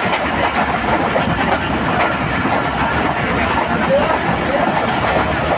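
Pakistan Railways Awam Express train running through a station without stopping: a loud, steady rumble of the train going by, with wheels clacking on the rails.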